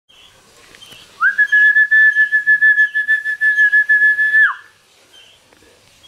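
A long whistled note lasting about three seconds, held at one steady pitch. It slides up at the start and drops away at the end, with a fast flutter in its loudness.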